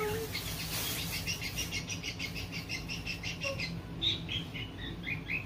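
Bird chirping: a quick run of chirps, then slower single falling chirps. A plastic bag rustles at the start.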